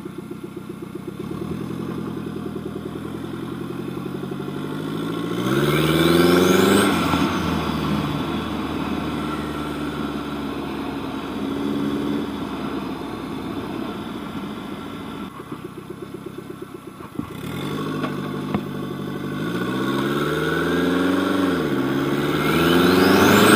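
Turbocharged engine of a home-built lawn tractor accelerating hard twice, its pitch climbing each time, with a thin whistle rising fast as the turbo spools up. Between the two pulls it eases off and drops to a low, pulsing run about two-thirds of the way through.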